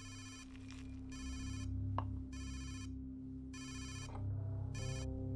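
Mobile phone ringing: a buzzy electronic ring tone repeating five times, about a second apart.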